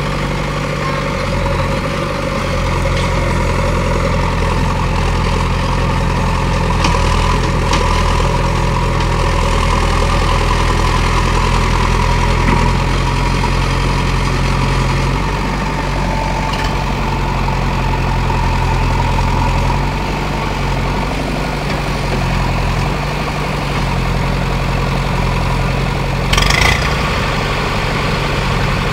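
Diesel engines of a JCB 3DX backhoe loader and a tractor bogged in mud, running together as a steady low drone whose note shifts a few times, with a brief sharp noise near the end.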